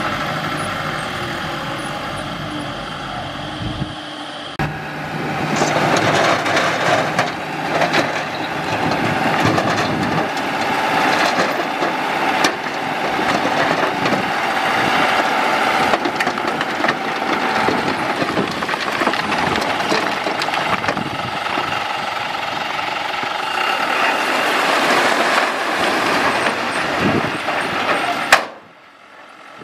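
Thaco Forland dump truck's diesel engine running, first steady while it reverses, then with a rough clattering rush of rocky soil sliding and tumbling out of the raised tipping bed. The sound drops out suddenly near the end.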